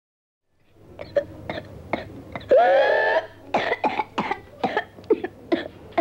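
A boy with whooping cough (pertussis) in a coughing fit: runs of short, rapid coughs, broken about two and a half seconds in by one long, rising whooping intake of breath, then more coughs. A low steady hum sits underneath.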